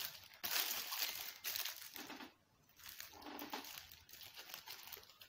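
Paper burger wrapper crinkling and rustling as it is peeled open by hand, in two stretches with a short pause about halfway.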